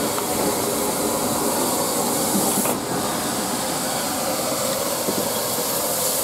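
Steady hiss of steam from the standing S&DJR 7F 2-8-0 steam locomotive No. 53808, with a brief dip about three seconds in.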